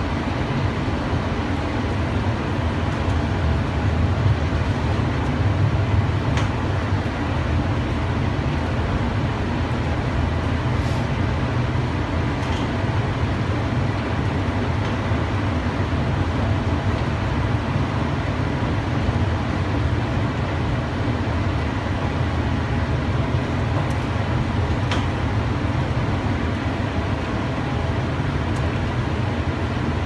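Steady low rumble of a cable-drawn Doppelmayr Cable Liner people-mover car running along its elevated guideway, heard from inside the car, with a few faint clicks along the way.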